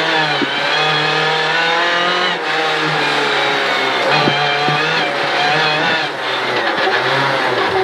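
Rally car engine at high revs under hard acceleration on a gravel stage, heard from inside the cockpit. The engine note holds high and dips briefly a few times.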